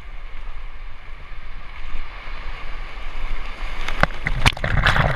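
Shallow ocean surf swirling around a camera at the waterline, with a steady low rumble of water and wind on the microphone. About four seconds in, a wave breaks over the camera with a run of sharp splashes.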